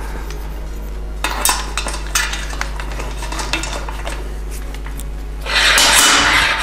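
Sliding-hammer bearing puller at work in a bicycle frame's bottom bracket bearing: repeated metal clinks, scrapes and light knocks as the hammer is slid along its rod. Near the end a louder, even noise comes in over it.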